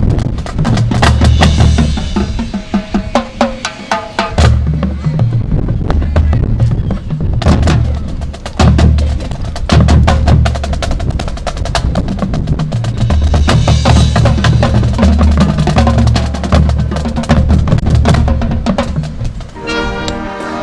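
High school marching band playing a percussion-driven passage. Snare and bass drums keep up a dense rhythm with wood block over low bass notes, and a held wind chord comes in near the end.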